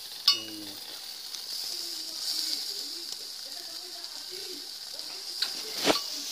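Meat sizzling over hot coals in a masonry stove's firebox, a steady hiss. About a quarter second in there is a sharp metallic clank with a brief ring as the cast-iron firebox door and its latch are worked open, and a few knocks follow near the end.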